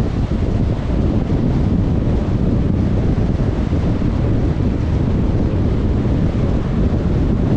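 Steady rumbling noise of a car on the move: wind and road noise, heaviest in the low range, without a break.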